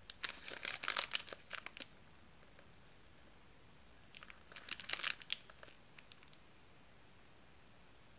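Thin plastic piping bag crinkling as it is handled and filled with chocolate frosting from a small spoon, in two bursts of crackling about four seconds apart.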